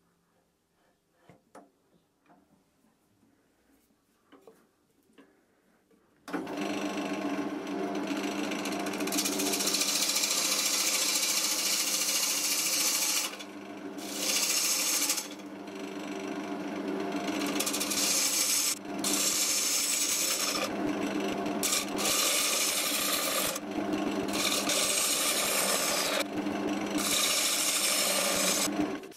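A few seconds of near quiet with small knocks. Then a wood lathe runs with a steady hum while a turning gouge cuts the face of a spinning oak blank, the shavings giving a loud, rasping hiss that drops away briefly each time the tool lifts off.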